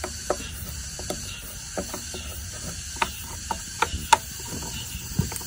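Small brush scrubbing and poking at dirt inside an electric lawn mower's plastic motor housing: a string of short scratches and clicks, the sharpest about four seconds in, over a steady background hiss.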